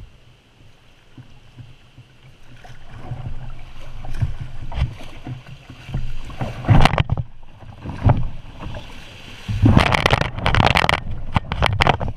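Kayak running a shallow creek riffle: rushing water and splashing against the hull, building from a couple of seconds in, with the heaviest splashing near the end as the kayak heels over in the fast water.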